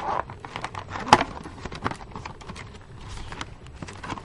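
Packaging being handled and opened by hand: irregular clicks and short rustles, the loudest just after a second in.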